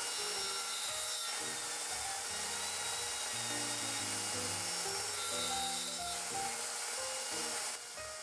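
1908 Fay & Egan table saw cutting a tapered dovetail in a wooden brake block, a steady dense whir of blade in wood; the sound drops near the end as the cut finishes and the blade runs free. Background music with a melody plays over it.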